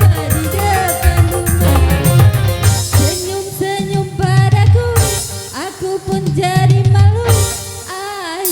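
Dangdut remix music playing: an instrumental stretch with a heavy, regular beat under a bending, wavering lead melody.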